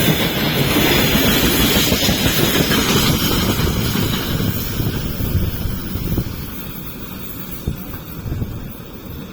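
Freight train wagons rolling past on the rails, a steady rumble of wheels on track that fades over the last few seconds as the train moves away.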